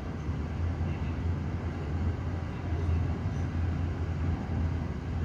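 Steady low rumble of airport apron noise, muffled through the terminal window glass, as an airliner is pushed back by a tug.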